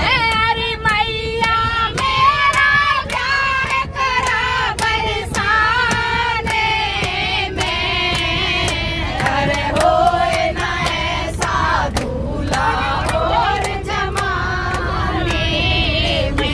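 A group of women singing a Hindi devotional song (bhajan) together in unison, with steady rhythmic hand-clapping on the beat.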